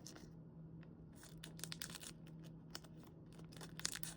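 Faint crinkling of a foil Pokémon booster-pack wrapper being worked open by hand, in scattered short crackles that grow more frequent near the end.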